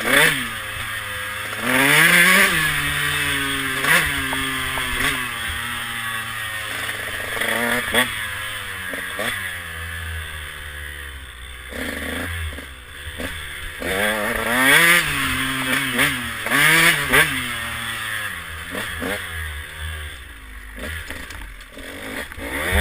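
KTM 150 SX two-stroke single-cylinder dirt bike engine revving hard again and again, its pitch shooting up and dropping back between bursts of throttle.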